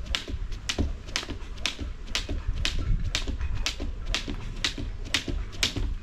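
Skipping rope in a steady rhythm: the rope slaps the ground mat and her jumps land about twice a second, each stroke a sharp slap.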